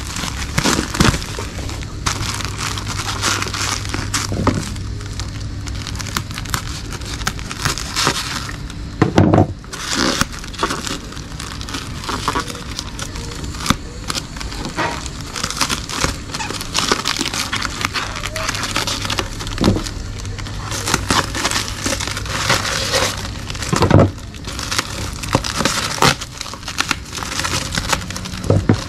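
Plastic packaging crinkling and crackling steadily as a black plastic bag and a taped plastic-wrapped parcel are handled and picked open by hand. A few louder thumps come about nine seconds in and again near the end.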